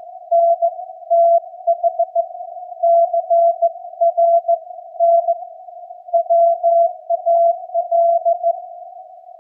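Slow Morse code (CW) received on a Yaesu FTDX10 shortwave transceiver: a single mid-pitched keyed tone sending dots and dashes at about 15 words per minute, with band hiss between the characters.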